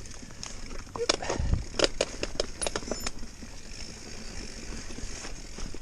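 Mountain bike clattering over rocky ground: irregular sharp knocks and rattles, with a low thud about a second and a half in.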